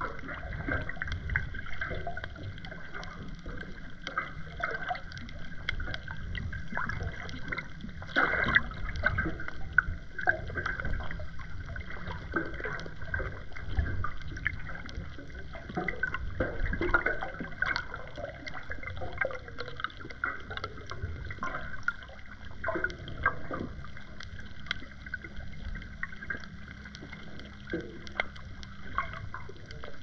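Underwater ambience heard through a GoPro's waterproof housing: muffled rushing and gurgling water with a low rumble and frequent small clicks and crackles.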